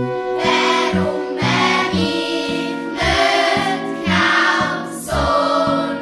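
Swiss-German pop song sung by a children's choir over a band with a steady, rhythmic bass line.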